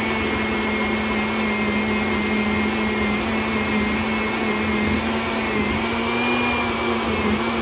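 Countertop blender motor running steadily, pureeing frozen fruit and yogurt into a thick frozen yogurt; its pitch steps up slightly about six seconds in.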